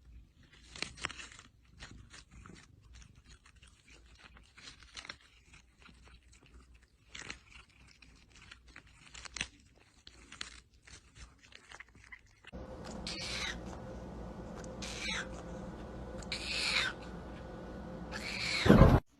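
Scattered short crunches and clicks, like a pet chewing; then, over a steady hum, four short high-pitched calls that fall in pitch, the last near the end the loudest.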